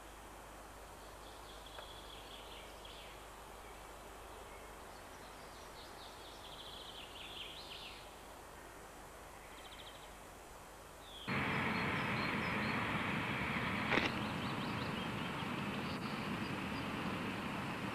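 Faint bird chirps over quiet forest ambience. About eleven seconds in, a cut brings a much louder steady rushing noise, with one sharp click a few seconds later.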